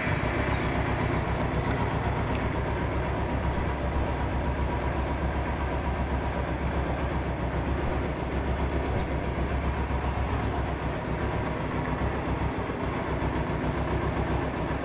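Kawasaki Ninja 250 FI parallel-twin engine idling steadily.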